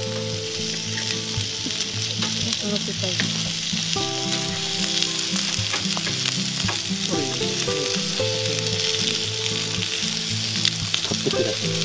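Meat sizzling steadily on a barbecue grill, with background music of held notes that change every second or two.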